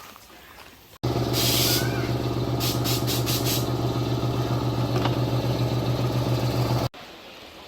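A motor or engine running at a steady hum, with two short bursts of hissing early in the sound. It starts and stops abruptly.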